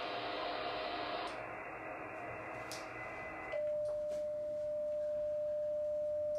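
Faint hiss from the ICOM IC-7100 transceiver's speaker. About halfway through, the hiss drops away and a steady single-pitch tone starts and holds: the radio's transmit tone as it keys up to tune the AT-141 antenna tuner.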